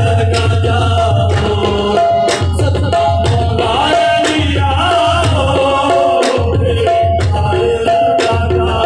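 Qawwali music: harmoniums playing held notes over a fast tabla rhythm, with a voice singing a wavering line about halfway through.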